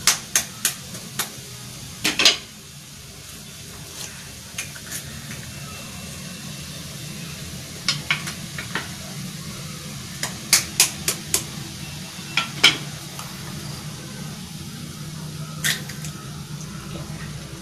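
Eggs being tapped and cracked against the rim of a frying pan, with a spatula knocking the pan, heard as clusters of sharp clicks and taps, several in quick succession around the middle. Underneath runs a low steady hum with faint sizzling from vegetables frying on high heat.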